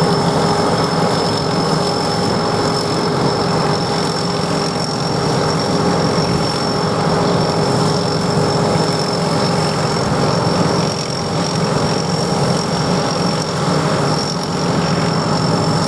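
SAKPATTANA SS100 mini rice combine harvester running steadily, its engine and machinery giving a constant drone with a steady high whine on top.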